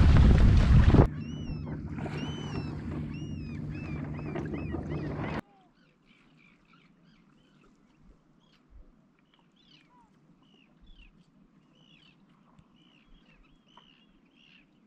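Wind and water rushing past a sailing trimaran for about a second, then a quieter stretch with a steady low hum and a bird's repeated high, arched calls. From about five seconds in, only faint chirping of small birds.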